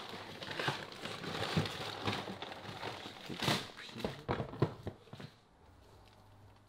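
Brown paper bags rustling and crinkling as they are pushed onto fridge shelves, with light knocks of bottles and packs being moved around. The handling dies down about five seconds in.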